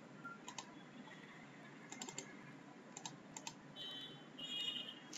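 Faint, scattered clicks of a computer mouse and keyboard, a few about two seconds in and again around three seconds, with a brief high-pitched sound about four seconds in.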